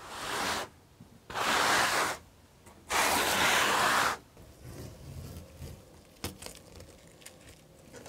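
Three long rasping strokes, about a second each and evenly spaced, followed by quieter scrapes and small clicks of hand work on a surface.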